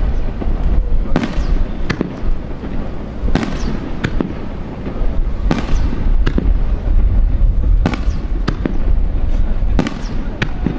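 Fireworks display: aerial shells bursting with sharp bangs every one to two seconds, each followed by a rolling echo, over a continuous low rumble.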